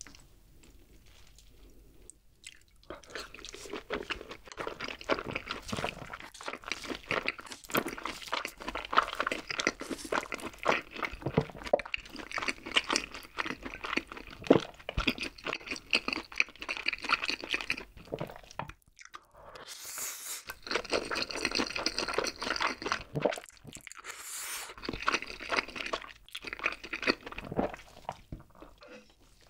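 Close-miked chewing and slurping of Jjapaghetti black bean instant noodles: a dense run of wet mouth clicks that starts a few seconds in and stops briefly past the midpoint.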